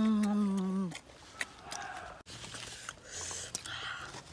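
A long hummed "mmm" of relish from a boy eating, ending about a second in, followed by chewing of crunchy fruit with small clicks and leaves rustling as the fruit is handled.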